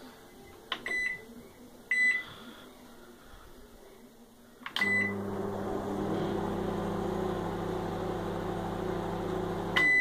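Cookworks microwave oven on a test run with its blown high-voltage fuse bypassed. Two short keypad beeps sound as the time is set. A click and beep follow as it starts, and the oven runs with a steady low mains hum for about five seconds without trouble. It beeps again as it stops near the end.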